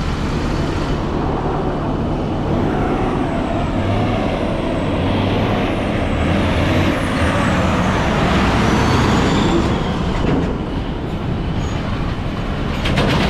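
Heavy diesel trucks running and moving past in slow traffic, a steady low engine rumble under road noise, with a high wavering brake squeal in the middle.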